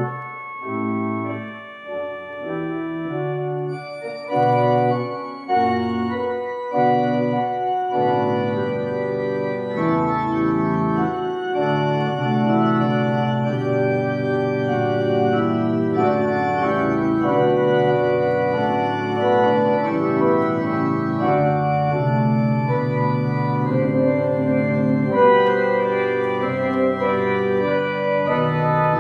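Church organ playing sustained chords over a bass line, at first separate notes and short chords, then from about eight seconds in a continuous, fuller sound.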